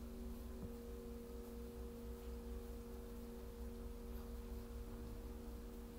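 Soft background meditation drone: several steady pure tones held without change, with a faint low rumble beneath.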